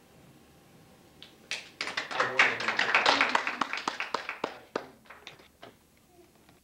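A small group of people clapping: it starts about a second and a half in, quickly builds, then thins out to a few last claps near the end.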